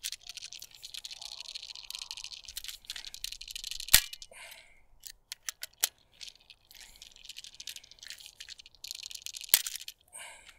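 Wheeler torque screwdriver being twisted on a circuit-breaker terminal screw, giving a rapid run of fine clicks as it turns. Sharp louder clicks stand out about four seconds in and again near the end: the torque clutch slipping, the sign that the set torque has been reached.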